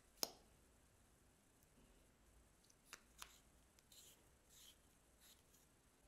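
A sharp click just after the start and two lighter clicks about three seconds in, from cosmetic containers and a makeup brush being handled, then a few soft brushing swishes as the brush works eyeshadow powder onto the slime.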